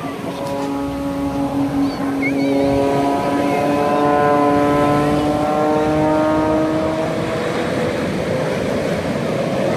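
Propeller engine of an aerobatic airplane droning, its pitch rising slowly as the plane dives, then fading about three-quarters of the way through. Surf washes underneath.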